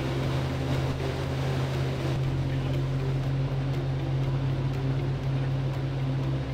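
Atlas Copco XAS 1800 portable air compressor's diesel engine running at a steady speed through its warm-up cycle, with a steady low tone.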